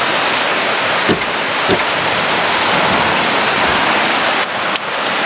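Steady rushing of running water, with a few soft low wooden knocks as a hinged wooden wall panel is swung shut and pressed closed.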